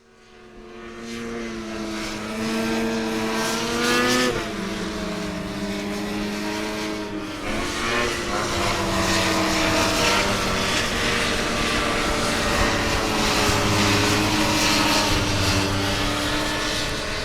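Snowmobile engine running and revving. It fades in, its pitch climbs slowly, drops sharply about four seconds in, then rises and falls again.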